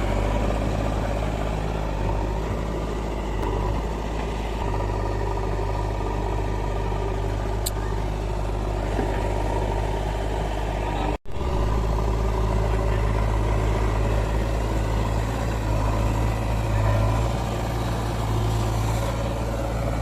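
Heavy diesel machine engine running steadily with a deep low hum. It breaks off for an instant about eleven seconds in, then resumes.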